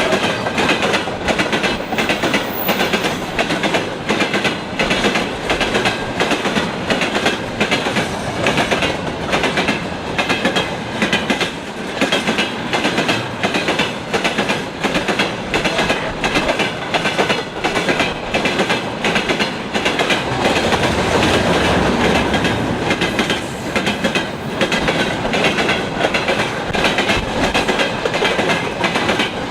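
Wagons of a mixed freight train rolling past, their wheels clacking over the rail joints in groups whose rhythm keeps breaking, because the axle spacing differs from one wagon to the next. About twenty seconds in, the clacks blur into a steadier rumble for a few seconds.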